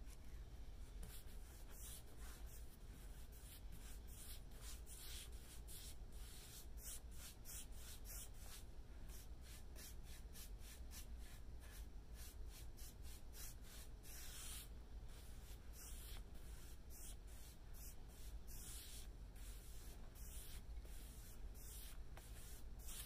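Paintbrush bristles swishing across a painted wooden tabletop, spreading a fresh coat of liquid wood finish: a quick, irregular run of faint scratchy strokes.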